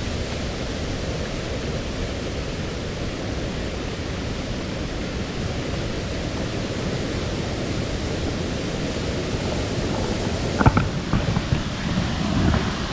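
Steady rush of flowing water from a nearby small waterfall and stream, with a few brief knocks about ten seconds in.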